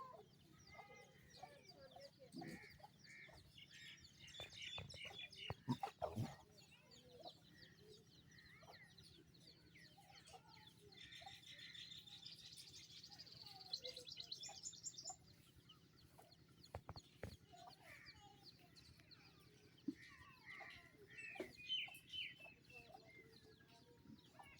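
Faint bird calls: scattered short clucking calls, with a rapid high chirping trill in the middle, over a faint low hum.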